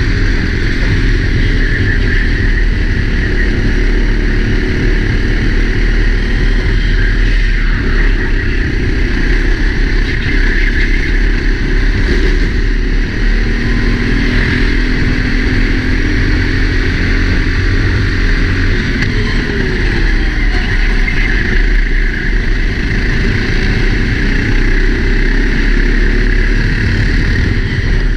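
Four-stroke Sodi kart engine at race pace, heard through a helmet-mounted camera under heavy wind rush. The engine note rises and falls as the kart accelerates and slows.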